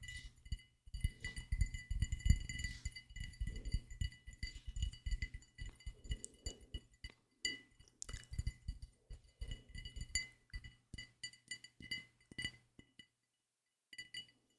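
Layered close-miked ASMR trigger sounds: irregular soft taps and clinks, with a faint high ringing tone held behind them.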